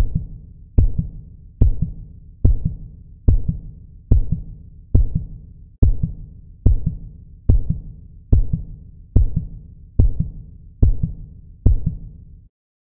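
Heartbeat sound effect in a song's intro: a steady, deep double thump (lub-dub) repeating about every 0.8 seconds, a little over seventy beats a minute, stopping shortly before the end.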